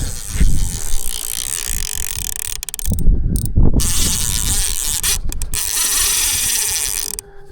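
Fishing reel running: a steady whirring and ratchet-like clicking as line is cast out and reeled.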